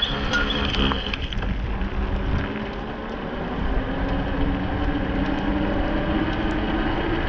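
Electric bike motor whining, its pitch climbing slowly over the second half as the bike speeds up, over a steady low rumble of wind on the microphone.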